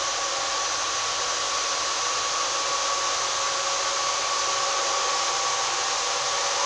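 Electric multiple unit standing at the platform with its auxiliary machinery running: a steady whining hum with a high hiss.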